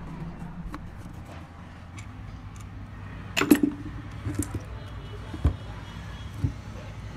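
Metal clinks and knocks of a screwdriver and an alternator's end housing being handled during disassembly, with a cluster of louder knocks a bit over three seconds in and single knocks after it, over a steady low hum.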